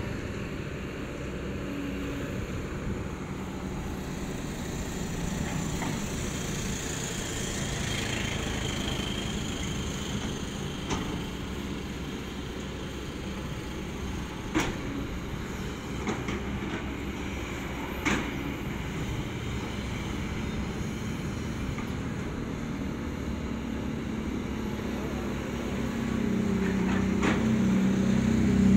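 Kobelco long-reach excavator's diesel engine running under hydraulic load as the boom swings and the bucket digs into riverbank soil, with a few sharp knocks in the middle and the engine growing louder near the end.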